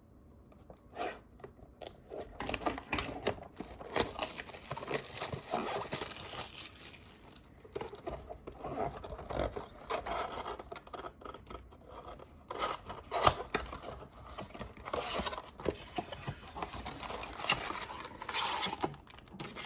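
A sealed trading-card blaster box being opened by hand: irregular tearing and crinkling of its plastic wrap, cardboard scraping and rustling, and scattered clicks. One sharp click about two-thirds of the way through.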